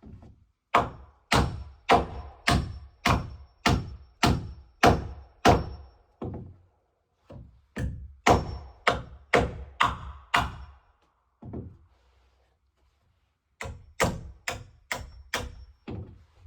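Repeated heavy blows of a hand striking tool on timber, about two a second, in three runs with short pauses between. Each blow has a faint metallic ring.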